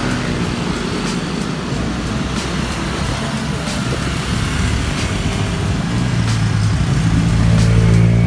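Road traffic heard from a moving bicycle: a steady roar of motorcycles running along the road, with one motorcycle's engine hum growing louder from about six seconds in as it comes up alongside.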